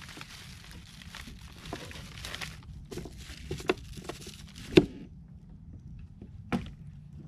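Plastic bait bag rustling and crinkling as hands dig through it for shrimp, with a few sharp clicks and knocks; the rustling stops suddenly about five seconds in and one more click follows.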